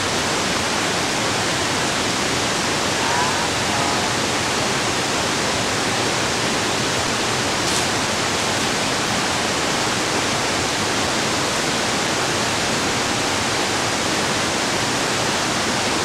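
A tall waterfall falling down a cliff face, a steady, even rush of water with no breaks.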